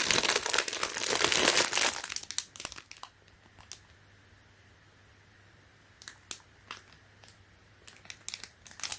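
Plastic bag crinkling as it is handled, dense for about the first two seconds, then settling to a few scattered crinkles and clicks.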